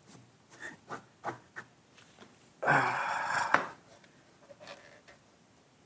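Plastic parts of a Dyson stick-vacuum dust bin being handled: scattered light clicks and knocks, with a louder scraping rustle lasting about a second midway.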